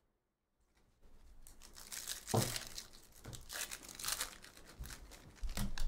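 A Topps Chrome baseball card pack's foil wrapper being torn open and crinkled by hand, starting about a second in, with uneven crackling rustles and a few louder tears.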